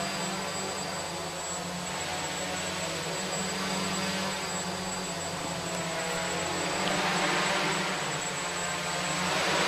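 Electric radio-controlled model aircraft flying, its motor and propeller whine steady underneath and swelling as it passes close, loudest near the end.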